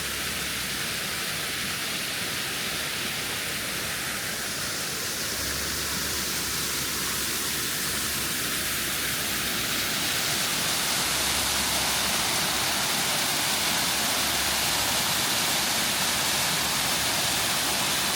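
Rushing water of a waterfall: a steady hiss that grows louder and fuller about ten seconds in.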